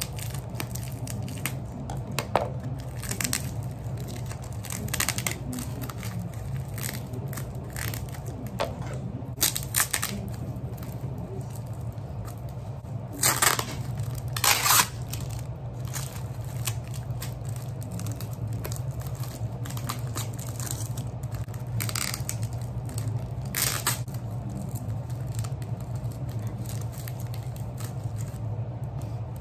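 Scissors snipping and plastic wrapping being torn and crinkled as a taped parcel is opened by hand, in scattered short bursts, the two loudest tears about halfway through. A steady low hum runs underneath.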